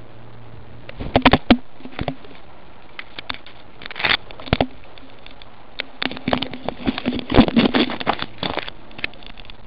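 Leaves and twigs brushing and scraping against a cat-worn camera as it pushes through shrubs: a string of crackles and clicks, busiest about a second in and again from about six to nine seconds in, over a steady low hum.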